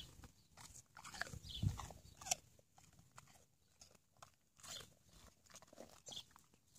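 Akita Inu dogs chewing pieces of apple: irregular crunching, loudest about two seconds in.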